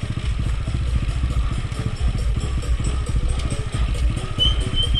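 Motorcycle engine running at low speed, a steady rapidly pulsing low rumble.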